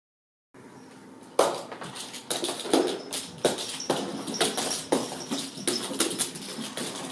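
Repeated knocks and thumps on a wooden staircase, roughly two a second, from Ragdoll kittens scampering on the bare wooden steps. It starts after a moment of silence and a faint hum.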